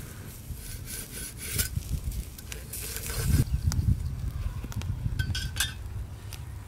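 A metal knife blade scraping over the crisp, charred skin of a spit-roasted goose in uneven rasping strokes.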